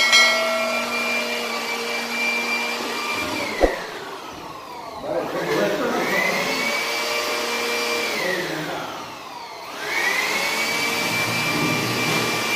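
Corded handheld vacuum cleaner being switched off and on: its motor whine winds down, then spins back up to a steady high pitch, twice over. A single sharp knock comes about three and a half seconds in.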